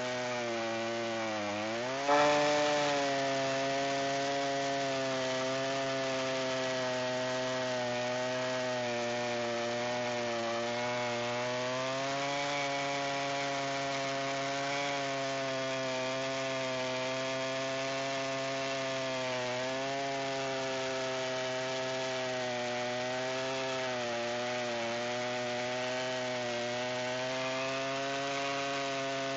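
Chainsaw in a rail-guided mill, ripping lengthwise through a sweet gum log, its engine running steadily under load. About two seconds in its pitch dips and then picks back up with a brief loud jump, and afterwards it holds with small wavers in speed.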